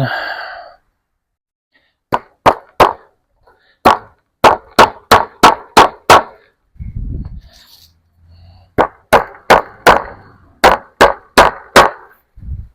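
Small staples being driven to fasten wire fencing to a wooden fence: runs of sharp, ringing strikes about three a second, with a short pause and a dull thump in the middle.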